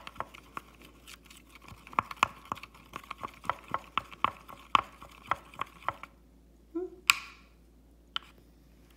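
Wooden stir stick clicking against the plastic sides and bottom of a tray compartment while stirring flour into vinegar, about two or three clicks a second. The clicking stops about six seconds in, and a single louder tap follows about a second later.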